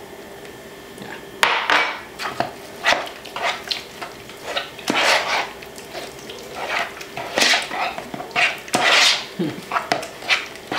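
Spoon stirring a thick chickpea-flour batter in a mixing bowl, with irregular scraping and clinking against the bowl, about one or two strokes a second, starting about a second and a half in. The batter is being thinned with almond milk and still has lumps.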